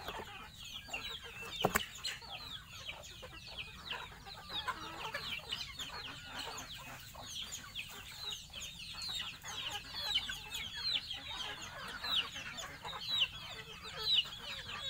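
Young chickens cheeping, a dense stream of short, high, falling peeps. A single sharp knock about two seconds in.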